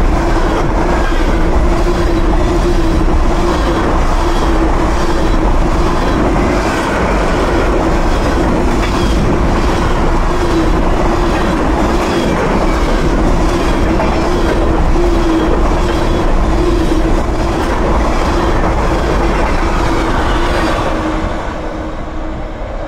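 Covered hopper cars of a freight train passing close by at speed: a steady rumble of steel wheels on rail, with even clicking of the wheels over the rail joints and a steady tone underneath. The sound starts to fade near the end.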